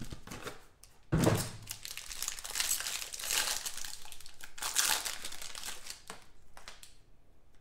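Foil wrapper of a 2018 Panini Playbook football card pack being torn open and crinkled by hand as the cards are pulled out, with a louder bump about a second in.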